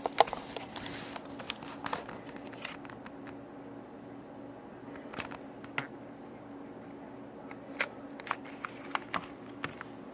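Paper being rolled and handled around a row of AAA batteries: rustling with scattered sharp clicks and taps, over a faint steady hum.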